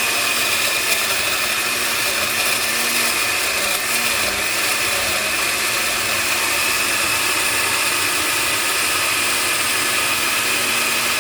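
Countertop blender running at full speed, pureeing roasted bell pepper, tomato, onion and habanero into a pepper base. The motor runs loud and steady, its pitch wavering briefly a few seconds in.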